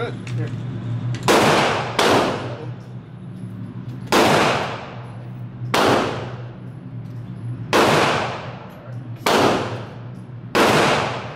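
Seven gunshots at irregular intervals, one to two seconds apart, each ringing off the walls of an indoor range, over a steady low hum. They come from other shooters' lanes, not from the shotgun in hand, which is held upright and not fired.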